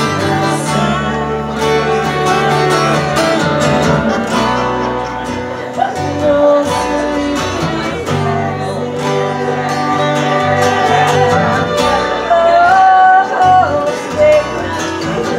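Live acoustic folk band: two women singing together over a strummed acoustic guitar and a bass guitar line.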